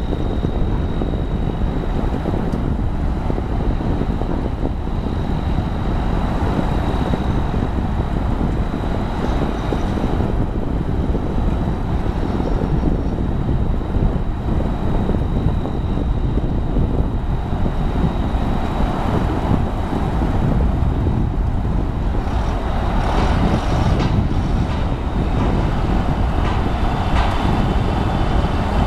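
Steady low rumble of heavy diesel machinery.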